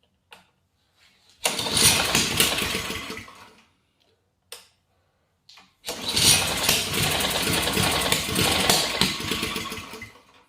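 Ariens AX 208 cc four-stroke single-cylinder snowblower engine, pull-started on full choke after priming, firing and running for about two seconds before dying, then catching again on the next pull and running about four seconds before fading out. It is running only on primer fuel: the fuel shutoff turns out to be closed.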